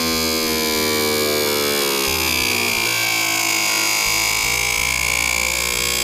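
A 555 DC motor spinning a small cutting disc at high speed with a steady electric whine. Its pitch falls gradually over the first couple of seconds as the motor slows under load while a piece of cardboard is held against the disc, then it runs on steadily.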